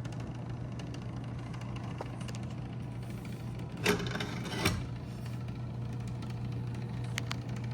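Smith Corona Electra 110 electric typewriter's motor running with a steady low hum. Two sharp mechanical clacks, about a second apart, come near the middle, and there are a few faint ticks.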